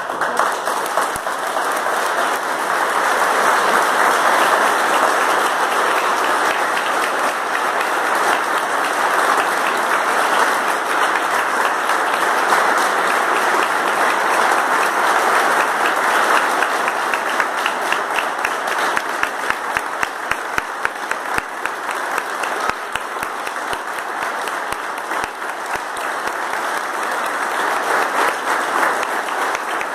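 A church congregation applauding: many people clapping together in one long, loud round that breaks out at once. In the later part, single claps stand out more clearly.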